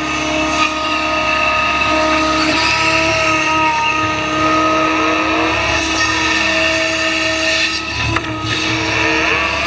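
Hydraulic excavator running under load from close up: the diesel engine working with a steady hydraulic whine whose pitch shifts as the bucket lifts a load of dirt out of the trench and the machine swings. A single short knock near the end.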